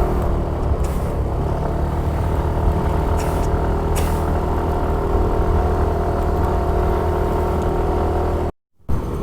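Yamaha Mio i 125 scooter's single-cylinder engine running at a steady throttle while climbing, with wind rumble on the camera. The sound cuts out for a moment near the end.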